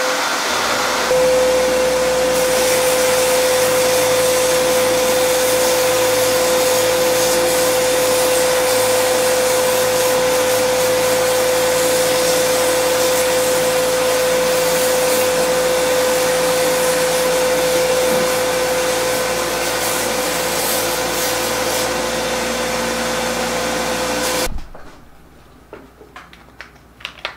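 A shop vacuum with a cyclone dust separator and a small bench belt sander running together while a maple lure body is sanded on a 120-grit belt: a loud, even rush with a steady high whine. Both cut off suddenly near the end.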